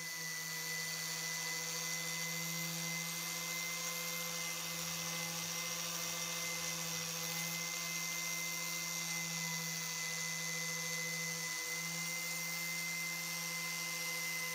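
An electric power tool running steadily, a constant motor hum with a thin high whine and a hiss above it.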